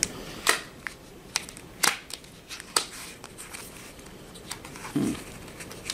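Eyeshadow palette packaging being handled and opened by hand: a few light, separate clicks and taps with faint rustling.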